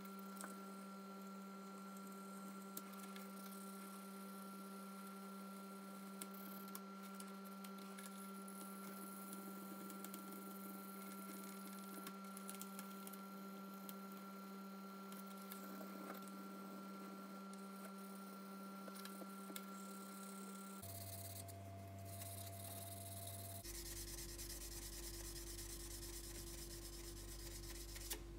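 Faint rubbing and scratching of sandpaper worked by hand along a screwdriver's metal shaft, over a steady hum that shifts pitch twice near the end.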